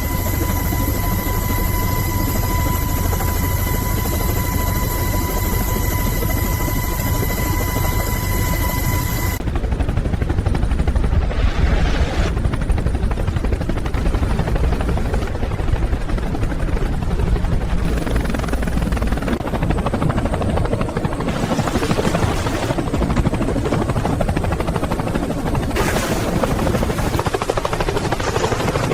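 Tilt-rotor aircraft flying, its rotor and engine noise steady and heavy in the low end. A high steady whine rides over it for about the first nine seconds, then cuts off suddenly.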